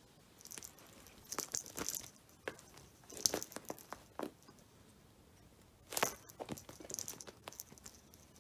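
A cat wrestling and kicking a fabric octopus toy on a rug: irregular bursts of scratching and rustling from its claws and paws on the rug and toy, sharpest about three and six seconds in.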